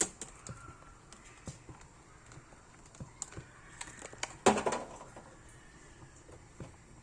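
Kitchen handling at a cooking pot while dried longan is added: scattered light clicks and taps, with one louder knock and a short ringing about four and a half seconds in.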